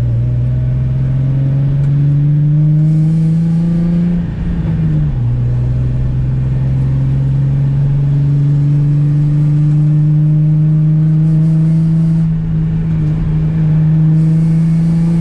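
Nissan 350Z's 3.5-litre V6 pulling under load, its pitch climbing steadily. The pitch drops at an upshift about four and a half seconds in, then climbs again through the next gear. Much of the exhaust system is missing, which makes it loud and deep.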